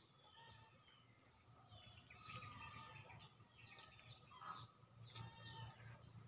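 Faint birds chirping repeatedly over a low steady hum, the room otherwise quiet.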